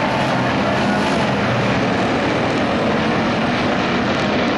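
A field of street stock race cars running together on a dirt oval, their engines blending into one loud, steady drone.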